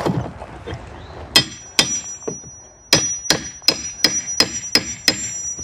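Hammer strikes with a metallic ring while working deck boards loose to take them up. There are two blows, then a steady run of seven at about three a second.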